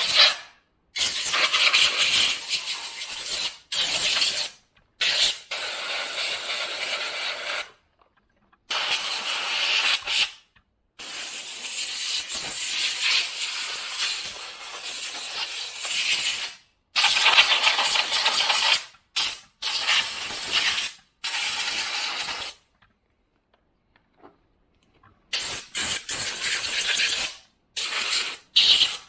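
Compressed-air blow gun blasting dust out of a chainsaw powerhead, hissing in repeated bursts from under a second to several seconds long, each cut off sharply.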